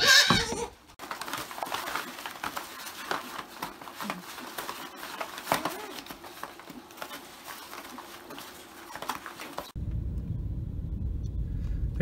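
A goat kid bleats loudly in the first second, followed by a long stretch of rustling and shuffling with faint animal noises. About ten seconds in, this cuts to a vehicle engine running low and steady, heard from inside the cab.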